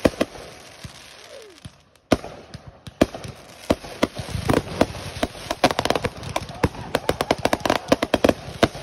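Aerial fireworks going off in a finale barrage. Sharp bangs come at first spaced apart, then from about three seconds in they crowd into a rapid, almost continuous string of reports.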